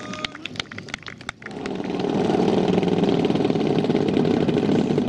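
DA 120cc twin-cylinder petrol engine of a large Hangar 9 Extra 300 model plane, running steadily at idle on the ground. It comes in loud about a second and a half in, after a few light clicks.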